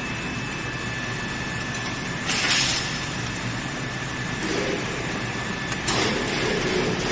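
A 3-in-1 H-beam assembly, welding and straightening machine running with a steady mechanical hum and a faint whine. A short hissing burst comes about two seconds in, and shorter ones near the end.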